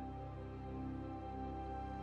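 Slow, calm background music of sustained, held tones, like an ambient new-age pad.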